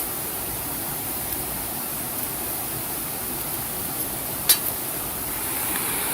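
Steady rushing of flowing water with a single sharp pop from a campfire about four and a half seconds in.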